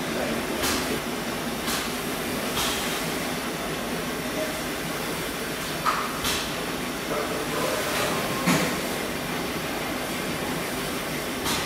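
Steady mechanical din of working stationary engines, with short sharp hissing puffs at irregular gaps, three about a second apart near the start.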